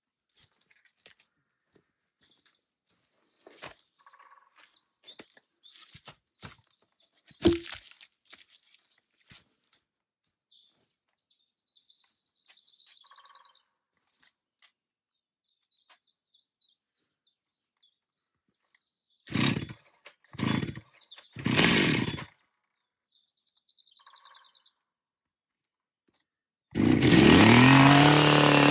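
A two-stroke chainsaw being pull-started: three short loud bursts as the pulls fail to catch, then near the end the engine fires, revs up and keeps running, typical of a saw that is hard to start. Before that there are scattered crunches and clicks, and a small bird chirps faintly.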